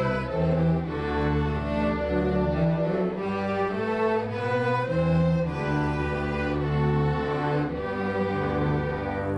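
Student string orchestra playing, with cellos and basses holding low notes under the violins.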